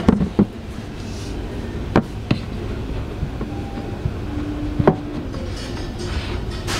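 A few short knocks and taps as a cardboard storage box is handled and its lid lifted, over a steady low background rumble.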